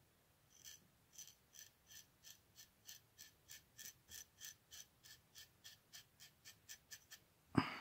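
Small secondary blade of a Victorinox Spartan pocket knife scraping through hair in quick, short, evenly spaced strokes, about three a second: a shaving test of its edge. A single louder knock near the end.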